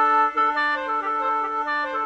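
Khaen, the bamboo free-reed mouth organ, playing several notes at once. A low drone note is held throughout while the melody above it moves in quick steps.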